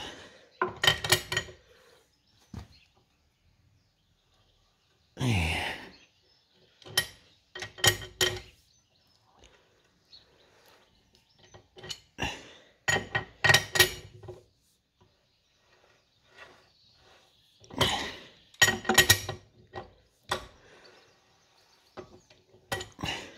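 Bursts of metallic clanking and ringing, about six clusters with pauses between, as a freed-up Lister three-cylinder diesel engine is turned over, its crank, rockers and push rods moving again after being seized. One longer scraping sound comes about five seconds in.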